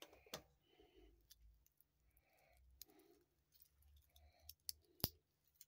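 Faint handling of a stainless steel watch bracelet, with soft rustles and small metallic clicks as the watch is put on the wrist. A sharp click about five seconds in, the loudest, is the bracelet clasp snapping shut.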